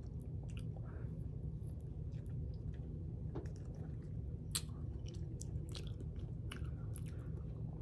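A person chewing golden berries (cape gooseberries), with small wet mouth clicks scattered through, a few louder ones in the second half, over a low steady hum.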